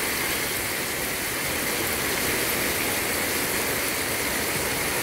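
Wahoo medallions and onions frying in butter and olive oil on a wide flat steel pan, giving a steady, even sizzle.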